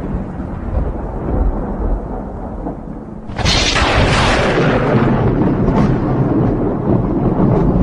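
Thunder: a low rumble dying away, then a sudden loud crack a little over three seconds in that rolls on into a long fading rumble.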